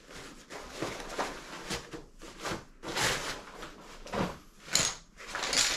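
Fabric carry bag rustling and scraping in irregular bursts as a folded camping chair is pulled out of it, the loudest bursts about three seconds in and again near the end.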